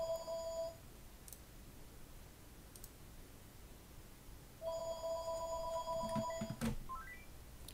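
Telephone ringing with a steady electronic ring in a phone-style cadence. One ring stops just under a second in, and another lasting about two seconds comes after a pause of about four seconds. A click follows, then a quick run of short rising beeps.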